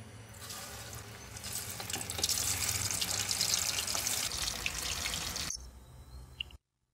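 Chicken pieces sizzling and crackling as they deep-fry in hot oil in a pan. The sizzle grows louder about two seconds in and cuts off sharply about five and a half seconds in.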